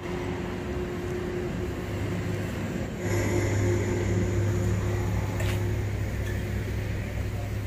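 Hino 500 truck's diesel engine idling: a steady low hum with a faint higher tone, getting louder about three seconds in.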